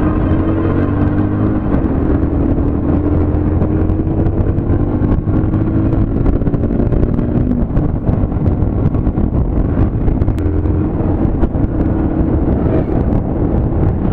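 Motorcycle engine running steadily while riding, its note climbing slowly twice as it gathers speed.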